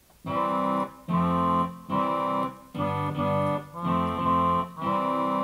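Roland FR-1x digital accordion playing about six held notes and chords, each under a second with short gaps between, some with bass notes beneath; the treble is set to a bassoon voice, with fretless bass and acoustic piano chords on the bass side.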